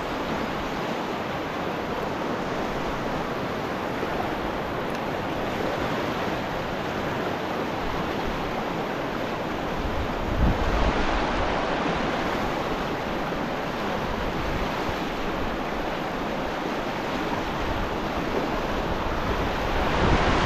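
Fast-flowing river water rushing steadily over rocks, with a low buffet of wind on the microphone about halfway through.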